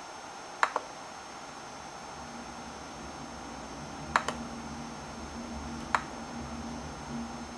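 Single clicks from a laptop's touchpad buttons and keys, a second or more apart: a quick pair about half a second in, one about four seconds in, and one near six seconds. A faint low hum sets in about two seconds in.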